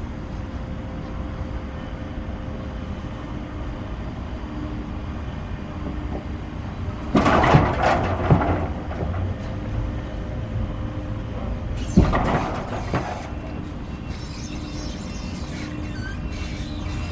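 Forklift working at a timber loading yard: its engine running steadily with a low beep that repeats every second or two, and two loud bursts of clattering and knocks, about seven and twelve seconds in.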